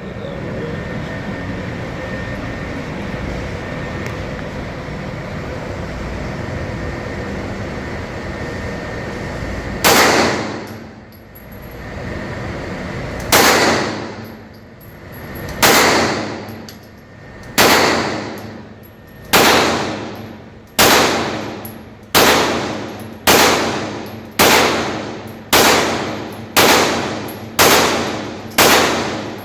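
Steady background noise for the first ten seconds, then a string of 9mm Springfield XD pistol shots, each with a long ringing tail. The shots start slowly, about three seconds apart, and come quicker and quicker, near one a second or faster by the end.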